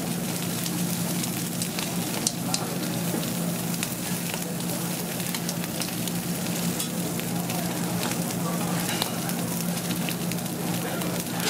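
Whole fish sizzling on a steel grill grate over glowing charcoal, with a few sharp pops and crackles from the fire over a steady low hum.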